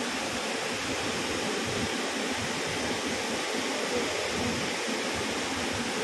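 Kanthanpara waterfall cascading down a steep rock face: a steady rush of falling water.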